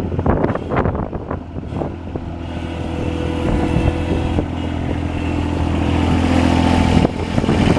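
1991 Bobcat 643 skid steer loader's engine running, with irregular clattering knocks over the first couple of seconds; from about two seconds in the engine grows steadily louder.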